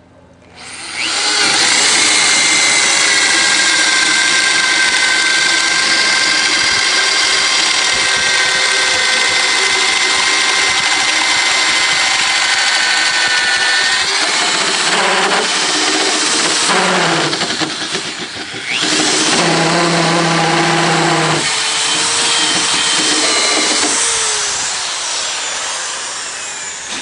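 Power drill boring a 1-inch auger bit down through the top of a wooden deck post. The motor whine starts about a second in and runs steadily, then sags and breaks up several times in the second half as the bit works deeper, and fades near the end.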